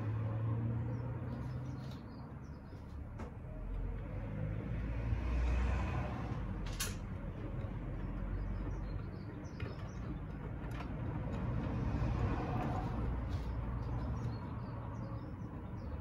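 Beko WTK104121A washing machine's drum turning at low speed with the motor humming, swelling and easing in slow waves as the load is tumbled and balanced before the final spin. A sharp click about seven seconds in.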